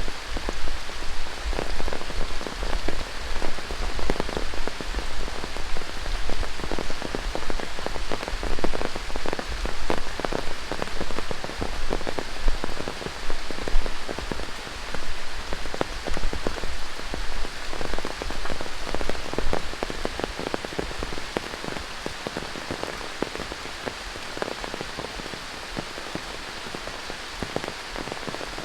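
Heavy tropical rain falling through rainforest, a steady hiss dense with the patter of individual drops. It eases and grows softer about two-thirds of the way through.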